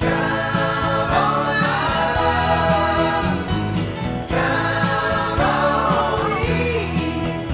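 Background music: a song with singing over instrumental accompaniment, new sung phrases starting near the beginning and again about four seconds in.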